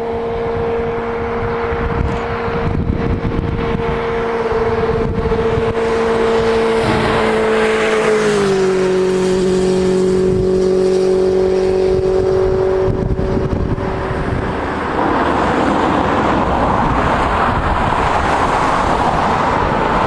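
Car being driven: a steady engine drone that drops a little in pitch about eight seconds in, then fades under a steady hiss of road and wind noise.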